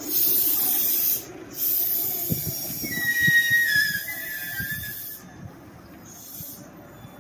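Meitetsu electric train's air brakes letting out two long bursts of compressed-air hiss. In the second burst a brief brake squeal falls slightly in pitch, with a few low clunks from the train.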